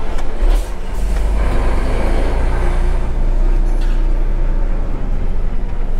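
Diesel engine of a truck running low and steady as it drives slowly, heard from inside the cab, with a short knock about half a second in.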